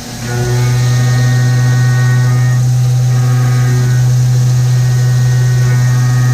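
Haas VF-3 CNC vertical mill running a machining program: a loud, steady spindle tone with a ring of overtones, settling in during the first half second and holding.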